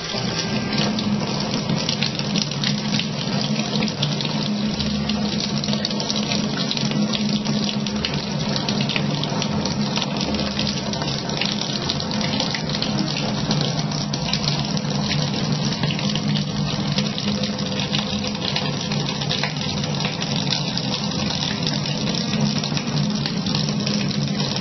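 Kitchen tap running steadily in a thin stream into the sink, splashing.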